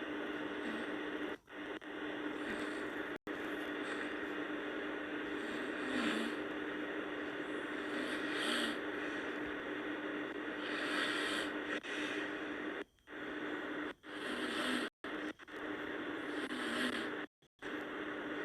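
A sleeping person snoring, with a breath swelling roughly every two to three seconds over a steady hiss and low hum. The sound cuts out briefly several times.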